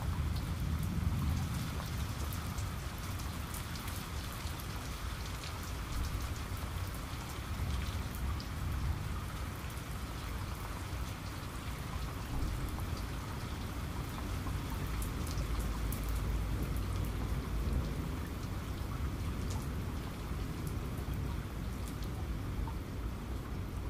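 Steady rain falling, with many scattered sharp drop ticks over a low rumble.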